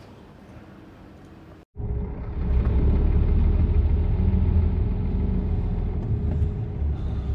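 Faint outdoor background, then after a cut about two seconds in, a Scania R410 truck's diesel engine running as the truck moves off slowly, heard from the cab: a loud, steady low rumble with a steady hum over it.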